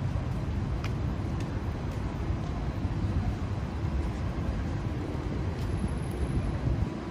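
City street traffic noise: a steady low rumble of passing vehicles, with a few faint clicks.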